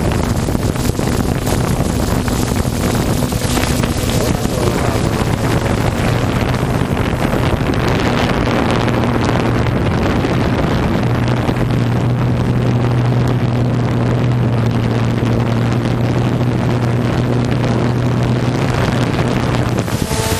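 A watercraft engine running at a steady speed, its pitch holding even throughout, under heavy wind buffeting the microphone.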